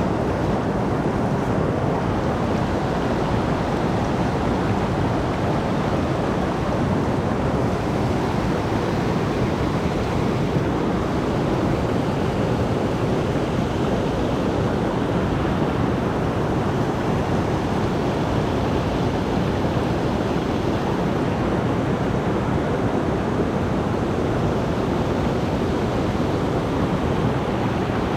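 Rain-swollen mountain stream rushing steadily, a loud even wash of water noise.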